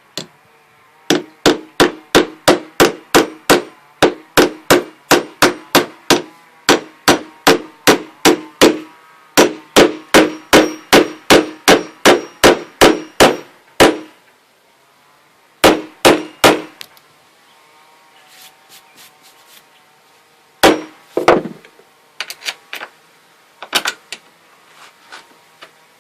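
Hammer repeatedly striking a sleeve insert to drive it into a hole in a workbench top, about three blows a second in two long runs with a short pause between, then a few slower, scattered blows near the end. Each strike gives a sharp knock with a brief ring.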